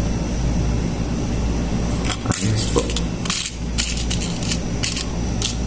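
Small metal fishing tackle clicking and rattling in a clear plastic compartment box as fingers rummage through it, a string of sharp clicks in the second half, over a steady low hum.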